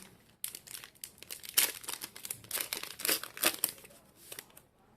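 Foil wrapper of a Pokémon Celebrations booster pack being torn open and crinkled, in a run of irregular crackles that stops shortly before the end.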